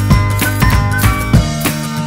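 Background music with a steady beat and bright, tinkling melody notes.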